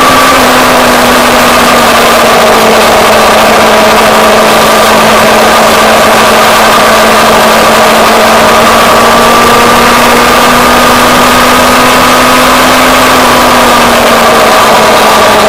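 Motorcycle engine running at a steady cruise, with heavy wind and road noise on the bike-mounted microphone. The engine note holds steady, then dips slightly near the end as the bike eases off.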